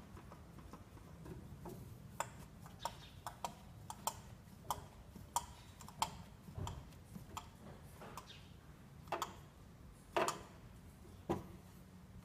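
Light, sharp clicks and small knocks, about one every half second to second, as a new spin-on oil filter is screwed onto its mount by hand, with a few louder knocks near the end.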